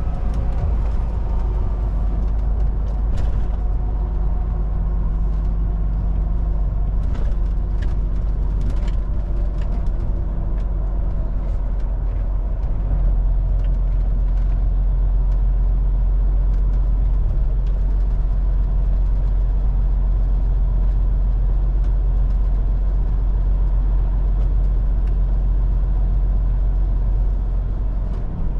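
Heavy truck on the move: steady diesel engine drone with road noise, the low engine note filling out a little about halfway through. A few faint clicks sound in the first few seconds.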